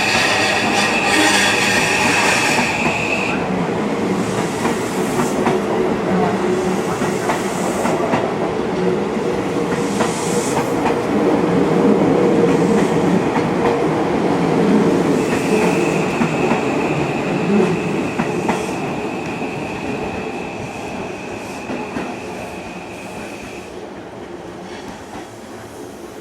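Seibu 001 series Laview limited express train running through a station without stopping, its wheels clattering over the rail joints and rumbling for a long stretch, then fading as it moves away. A high steady wheel squeal sounds at the very start and again for several seconds in the middle.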